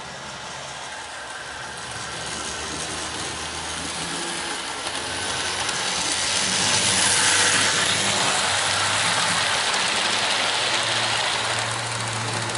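Model train locomotive and passenger cars running on the track: a steady rolling, whirring noise that grows louder as the train comes round the curve and passes about six to eight seconds in, then fades as it moves away.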